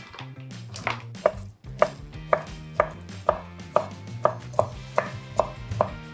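Chef's knife chopping through stacked bacon slices onto a wooden cutting board: about a dozen sharp, evenly spaced knocks, roughly two a second.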